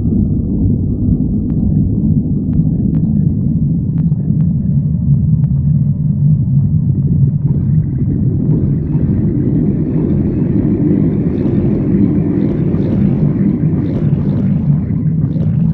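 Human stomach growling: a continuous low rumble that runs without a break, turning brighter and higher-pitched about halfway through.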